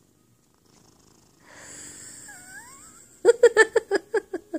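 Domestic cat vocalizing: a soft purring rumble with a faint rising squeak, then, about three seconds in, a loud pulsing purr of several beats a second, the cat's 'purrscendo'.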